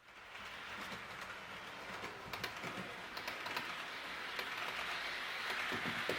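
H0-scale model train running on its track: a steady rushing noise full of rapid small clicks from wheels and rail joints. It fades in quickly at the start.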